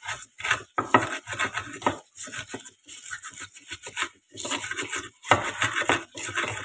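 Pestle grinding chilies, salt and sugar against a clay mortar (cobek), in short, rough, repeated strokes: sambal being crushed by hand.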